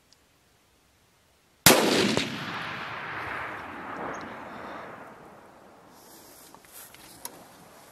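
A single hunting rifle shot fired at a feral hog about two seconds in: one sharp, loud report followed by a long rolling echo that fades away over several seconds.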